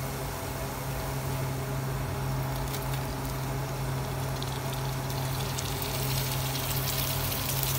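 Onions and spice masala frying in hot oil in a pan, a steady sizzle, over a steady low hum, with a few faint light taps as chopped tomatoes are dropped in by hand.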